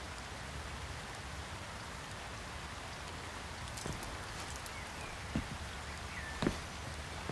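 Fountain water splashing and pouring steadily, with a few soft knocks in the second half.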